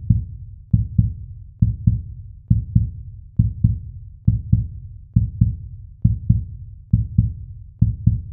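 A deep heartbeat-like pulse: pairs of low thumps, the second close behind the first, repeating evenly a little faster than once a second.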